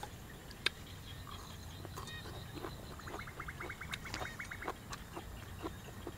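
Small rice-field frogs calling: a fast rattling call of about a dozen even pulses, around eight a second, a little over three seconds in, with fainter pulsed calls before it. Scattered sharp clicks come and go.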